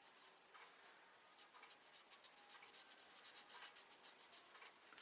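Felt-tip marker pen scribbled in quick back-and-forth strokes over the steel of a woodturning gouge, about six strokes a second from about a second and a half in until near the end. The tool is being inked before it goes to the grinder.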